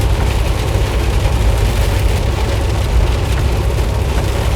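Loaded semi truck's engine and tyres droning steadily, heard from inside the cab, under the hiss of heavy rain and spray off standing water on the road.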